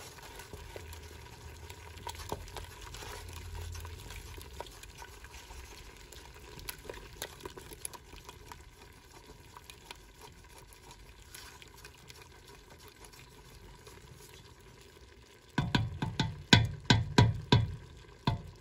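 A spoon stirring onions, carrots and a thin wine-and-gravy liquid in a stainless steel stock pot, with light scraping and a faint sizzle from the hot pot. Near the end comes a quick run of about eight loud knocks.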